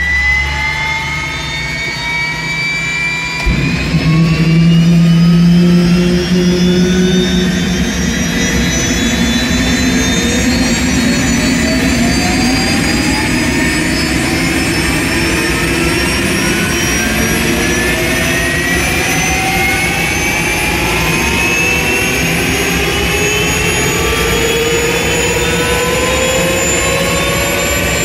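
Rolls-Royce M250-C20B turboshaft engine spooling up during a cold start, with a whine that climbs steadily in pitch as the compressor accelerates. About three and a half seconds in, a sudden low rumble joins it as combustion takes hold, and the engine keeps accelerating toward idle.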